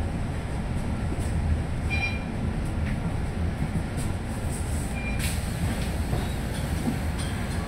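Steady low rumble of a moving bus heard from inside, with brief high squeaks about two seconds and five seconds in.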